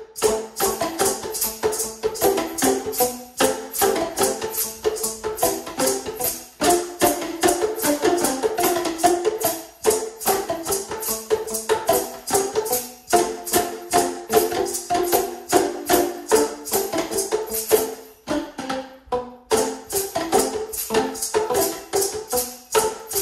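An ensemble of Boomwhackers, tuned plastic tubes, struck in a quick rhythmic pattern of pitched hollow notes, with short breaks every few seconds.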